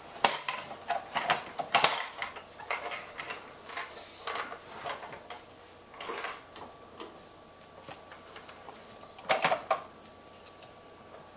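Irregular clicks, knocks and rattles of a vacuum cleaner being handled with its motor off, as when its dust container is opened for emptying.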